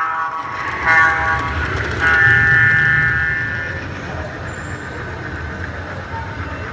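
Model diesel locomotive's sound system blowing its multi-tone horn: a short blast about a second in, then a longer one, over the low rumble of the model train running on the track.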